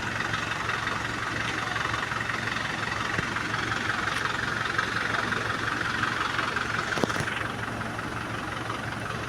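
Diesel engine of a 14-ton Hydra crane running steadily, with a higher hissing band over it that eases off about seven and a half seconds in, just after a single sharp click.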